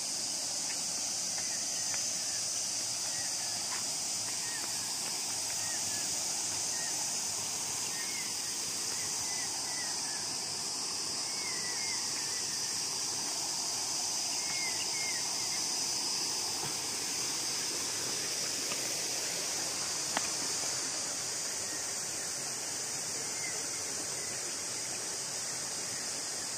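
Steady high-pitched insect chorus droning without pause, with short repeated chirps through the first half and one sharp click about twenty seconds in.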